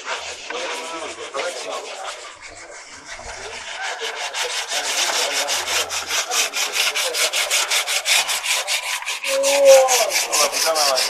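Rapid, even rasping strokes, about six a second, getting louder from about four seconds in.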